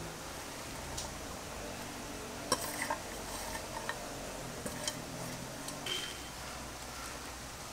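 Steel kitchen bowls and plates clinking lightly as chopped herbs are moved between them: a few scattered small knocks over a faint steady hiss.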